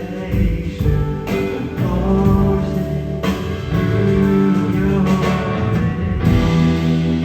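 Loud band music with singing, electric guitar and a drum kit playing steadily.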